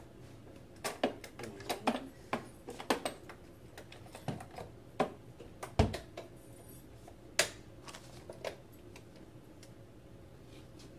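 Plastic and metal frame parts of a Graco Slim Spaces baby swing knocking and clicking together as they are handled and fitted during assembly: a run of irregular taps and clicks, with one heavier thump about six seconds in. The clicking dies away over the last couple of seconds.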